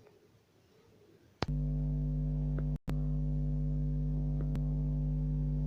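Near silence, then a steady electronic hum of several held low tones that starts abruptly with a click about a second and a half in and drops out for a moment near the middle.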